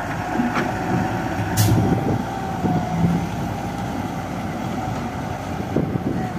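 Hindustan wheel loader's diesel engine running under load with a steady high whine, as the bucket is dragged across loose gravel to spread it. A short sharp hiss sounds about one and a half seconds in.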